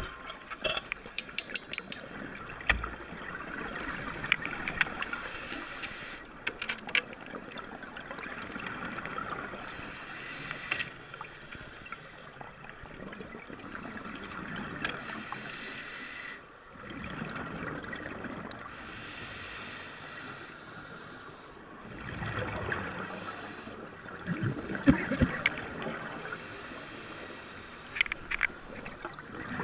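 Scuba breathing underwater through a regulator: hissing inhalations alternate every few seconds with bubbling exhalations, with scattered small clicks and crackles.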